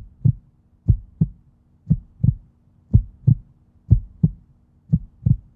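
Heartbeat sound effect: paired low thumps (lub-dub) about once a second, over a faint steady low hum.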